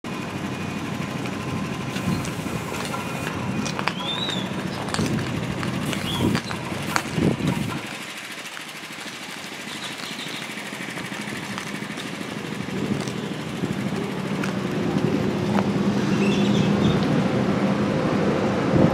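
Small gasoline engine on a walk-behind curb-striping paint sprayer running steadily, with a few sharp knocks in the first half and the hum growing louder over the last several seconds.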